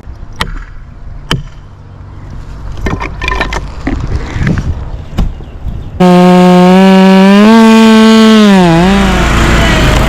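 A few sharp knocks and rustling, then a chainsaw comes in suddenly at full throttle about six seconds in. It holds a high steady pitch, dips briefly near the end as it bogs in the cut, and turns to a rougher noise.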